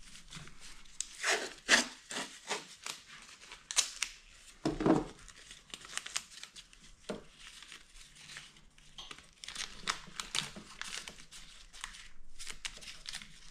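Gloved hands rustling and crinkling the wiring harness while tying it back out of the way, with short tearing sounds and a string of sharp clicks. The loudest are brief rips near 2, 4 and 5 seconds in.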